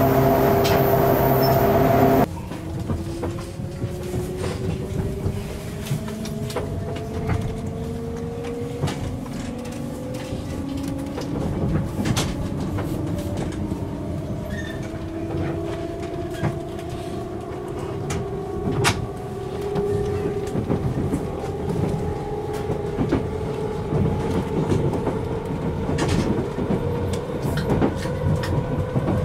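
JNR 189-series electric train heard from inside the passenger car, pulling away and accelerating. Its traction motors and gears make a whine of several tones that rises slowly and steadily, with scattered short clicks of the wheels over rail joints. It opens with a louder steady drone that cuts off about two seconds in.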